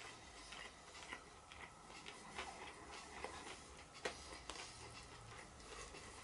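Faint, quiet handling noise: scattered small clicks and rustles as a chicken burger is pulled apart layer by layer, over a low room hum.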